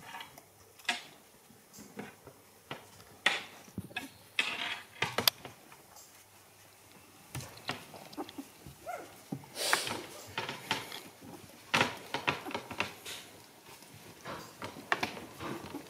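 Young puppies squeaking softly as they crawl about on fleece bedding, with scattered short rustles and clicks as the mother dog climbs into the whelping box to nurse them.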